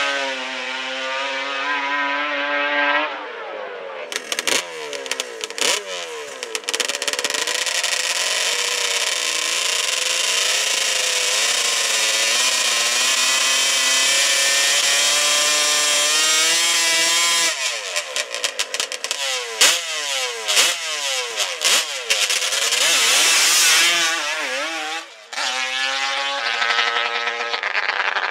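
Two-stroke twin-pipe drag ATV engines, Yamaha Banshee type: a pass fading away down the strip, then a long high-revving burnout with the rear tire spinning, followed by a string of sharp throttle blips while staging and a hard rev-up near the end.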